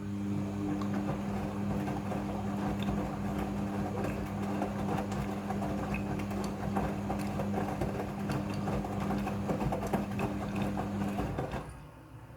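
Midea front-loading washing machine running: a steady low hum with a dense crackling noise over it, which cuts off suddenly near the end.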